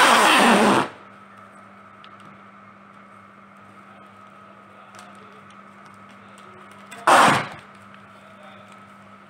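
Plastic cling film crackling as it is pulled from the roll and stretched. A loud burst lasts about a second at the start and a shorter one comes about seven seconds in, over a steady low hum.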